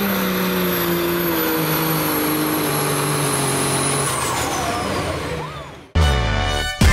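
Diesel pulling pickup's engine running under heavy load as it drags the sled, its pitch dropping in steps as the truck bogs down at the end of the pull. A high whistle falls away about four seconds in as the engine sound fades out, and music with a beat starts near the end.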